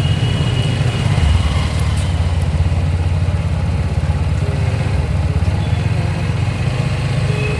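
Motorcycle engines running at low speed in slow street traffic, a steady low rumble.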